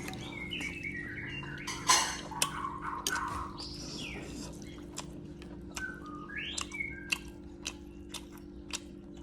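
Eating at the table: many short clicks and clinks, likely a spoon on a bowl, with a louder slurp-like burst about two seconds in. Over them come short chirping, whistle-like tones, and a steady low hum runs underneath.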